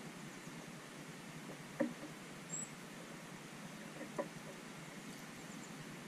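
Quiet outdoor ambience: a steady hiss with a few faint knocks, the sharpest just under two seconds in and two more around four seconds, and one brief, very high chirp about two and a half seconds in.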